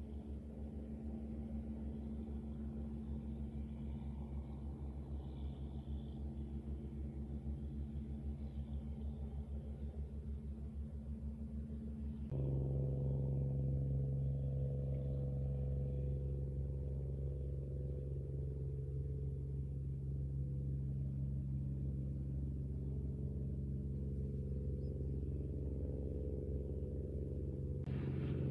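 Squid-fishing boat's diesel engine running steadily under way, a low pulsing drone. About twelve seconds in it abruptly gets louder and lower in tone.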